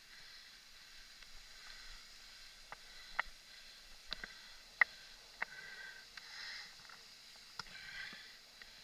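Mountain bike and its camera mount rattling over a bumpy dirt singletrack: a faint hiss broken by irregular sharp clicks and knocks, about six of them, the loudest just before the middle.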